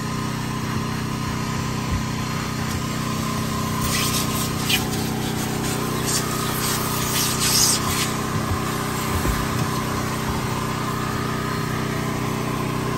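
An engine running steadily, with a few short hissing sounds between about four and eight seconds in.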